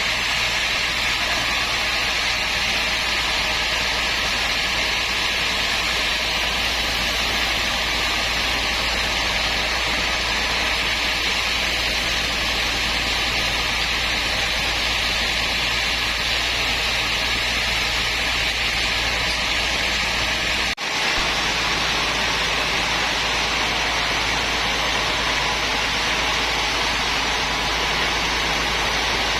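Steady, even running noise of a woodworking machine, broken by a sudden dropout for a split second about two-thirds of the way through.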